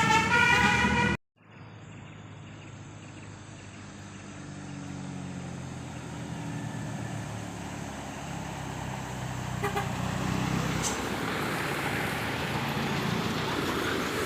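A bus's multi-tone telolet horn playing its tune, which cuts off abruptly about a second in. Then a bus engine runs with a low steady drone that grows louder, and road noise rises in the last few seconds as vehicles pass.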